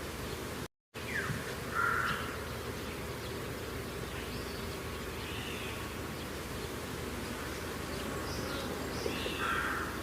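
Outdoor field ambience: a steady background hiss and hum with a bird calling in short arched notes every few seconds. The audio cuts out briefly about a second in.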